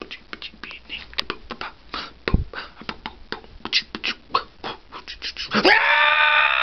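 A man's a cappella vocal percussion: a quick run of beatbox-style clicks and pops, then, about five and a half seconds in, a loud held high note sung with the mouth wide open.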